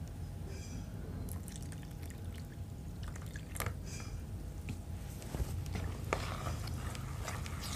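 Metal spoon stirring thin flour-and-coconut-milk batter in a plastic bowl: wet stirring sounds with scattered light clicks of the spoon against the bowl, over a steady low hum.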